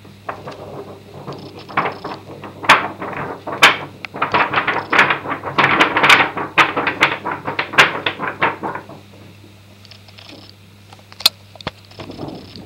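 Many quick, uneven taps and knocks on a sheet of dark card, shaking the loose talc powder off it to bring out the hamster's pawprints. The tapping goes on for about nine seconds, stops, and a few single sharp taps follow near the end.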